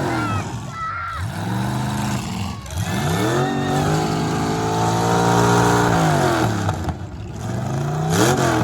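Demolition derby car engine revving hard: it climbs, is held high for about three seconds, drops back, then climbs again near the end.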